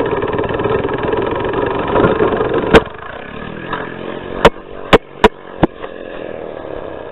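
Compressed-air piston engine of a Sega Toys Air Zero toy car running with a rapid, even buzz, heard from a camera mounted on the car. About three seconds in, a sharp loud knock cuts it down to a quieter running sound. Four more hard knocks follow within a second or so as the car tumbles, and the sound then fades.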